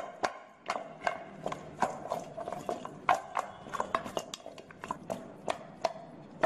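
Duck pieces tossed in a stainless steel mixing bowl: a quick, uneven run of knocks and thuds, about three a second, as the meat drops back against the bowl, each knock followed by a short metallic ring from the bowl.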